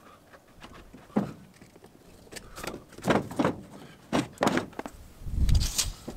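A heavy rubber horse stall mat being handled in a pickup truck bed: a few short rubbery scrapes and flaps as it is lifted and shifted, then a heavy thud about five seconds in as it drops flat onto the bed.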